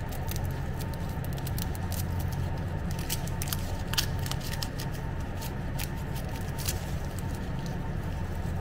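Dry, papery onion skin crackling as it is peeled and scraped off with a small knife, in irregular crisp clicks, over a steady low hum.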